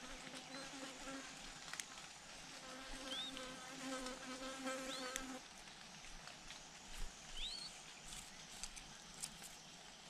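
A flying insect buzzing faintly at a steady pitch, stopping about five seconds in, with a few short, faint high chirps and soft clicks around it.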